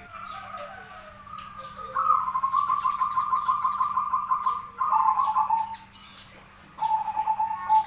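Zebra dove (perkutut) cooing. A rapid rippling trill of soft pulsed notes lasts about three seconds, then comes a slightly lower phrase and, near the end, one more short low phrase.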